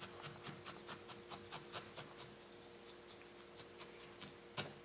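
Felting needle stabbing repeatedly into wool roving, a faint rhythm of quick pokes about five a second, thinning to sparser, fainter pokes after about two seconds. A sharper knock near the end.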